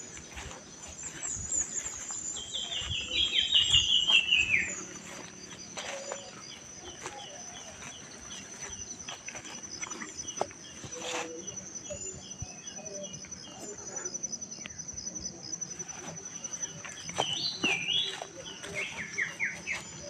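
Several birds calling and singing in a morning chorus, loudest in a run of quick, falling whistled notes a few seconds in and again near the end. A steady high-pitched buzz runs underneath.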